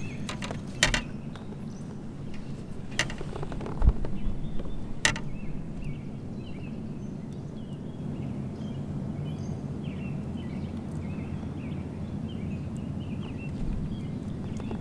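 Handling noises on a plastic fishing kayak as a landing net is worked: a few sharp clicks in the first five seconds and a dull knock about four seconds in, over a steady low outdoor rumble with faint high chirps.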